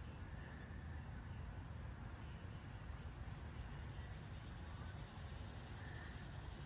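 Steady outdoor background ambience at dawn: an even low rumble with a few faint, short high chirps now and then.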